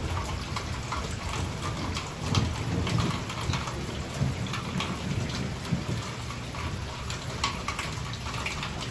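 Heavy wind-driven hurricane rain pouring down steadily, with many drops crackling on surfaces. A low rumble swells and fades under it.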